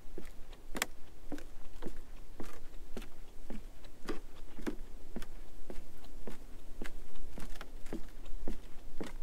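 Footsteps on a wooden plank boardwalk: hollow knocks at a steady walking pace of about two a second, one louder step about a second in. A low wind rumble on the microphone runs underneath.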